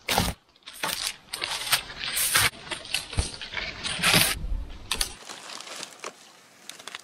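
Dry dead spruce wood cracking and snapping, with twigs crackling, as branches are pulled and broken off a fallen tree and a rotten stump. Several loud snaps come in the first half, with smaller crackles after about five seconds.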